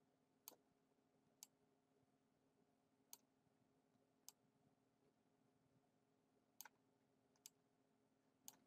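Faint computer mouse clicks, about seven single clicks spaced unevenly a second or more apart, over near silence.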